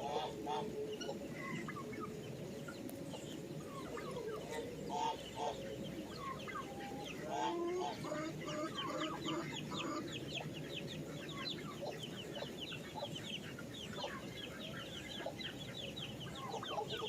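Chickens clucking while a flock of baby chicks peep, their quick high chirps thickening into a steady run from about halfway through, over the steady patter of rain.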